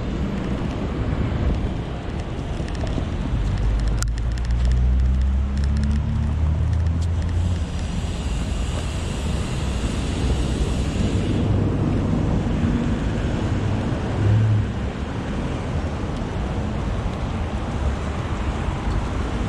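Oxelo kick scooter rolling over stone paving, its wheels rumbling under steady wind noise on the GoPro microphone, with passing car traffic. For a few seconds near the middle a higher hiss joins in.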